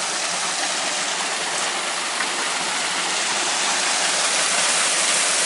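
Waterfall rushing, a steady, even roar of falling water that grows slightly louder toward the end.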